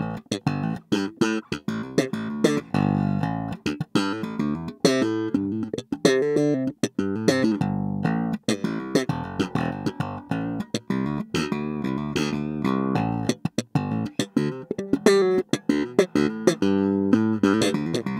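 Modulus Funk Unlimited J4 four-string electric bass with a Bartolini 9J1 jazz pickup set and Epifani 3-band active/passive preamp, played fingerstyle in a busy run of plucked notes. It is recorded direct through an Epifani UL501 DI.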